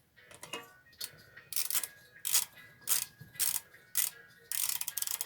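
Socket ratchet clicking in a series of short strokes, about two a second, the last one longer, as a mounting bolt is tightened down.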